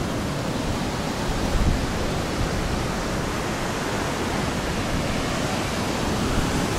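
Strong wind and heavy surf on the beach: a steady rushing noise.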